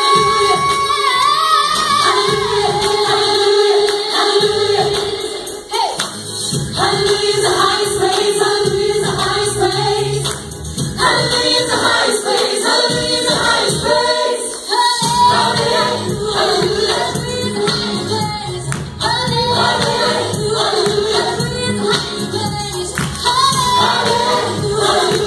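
Live worship song: a group of singers with a woman leading and instrumental backing. A fuller low end comes in about fifteen seconds in.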